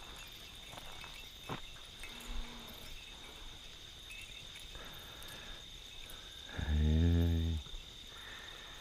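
Night insects, crickets, trilling steadily in a high, even band. Near the end, a loud, low, steady-pitched call or tone of unclear source lasts about a second.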